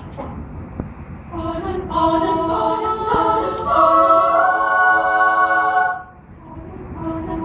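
Children's choir singing a cappella. It starts softly, swells into loud, sustained chords about two seconds in, breaks off around six seconds, and comes back in quietly near the end.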